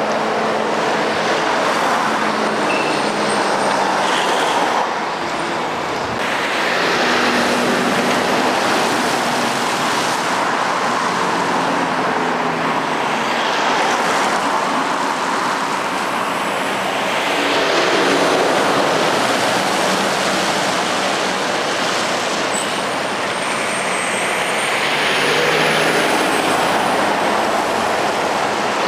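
Road traffic with heavy lorries and a van driving past close by one after another, their engine and tyre noise swelling and fading with each pass. A faint high squeal glides up and down about two-thirds of the way through.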